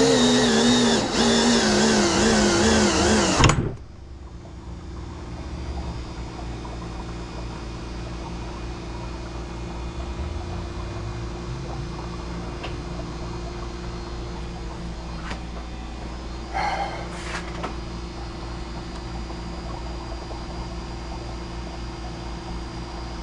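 Power drill driving a thread tap into aluminium extrusion: the motor runs under load with a wavering pitch for about three and a half seconds, then stops abruptly. A quieter steady low hum follows.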